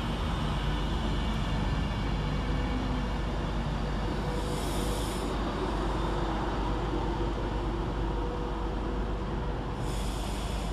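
Class 390 Pendolino electric train moving along the platform: a steady rumble of wheels on rail with a low electric hum, and two brief hisses, about four and a half seconds in and near the end.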